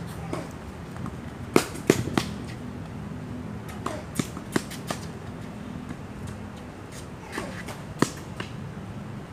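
Tennis rally on a hard court: sharp pops of the ball being struck by rackets and bouncing, in three short runs, the loudest two about a second and a half to two seconds in. A steady low hum runs underneath.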